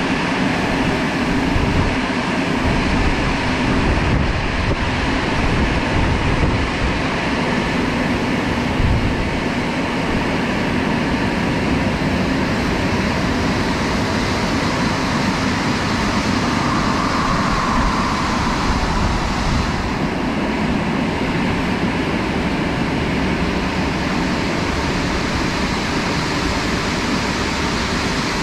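Christ Cadis C17 rollover car wash's drying blowers running, a loud steady rush of air with a deep rumble underneath.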